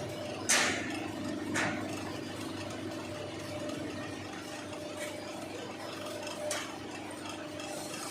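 CNC bending machine running with a steady hum, with four sharp knocks, the loudest about half a second in and others near 1.5, 5 and 6.5 seconds in.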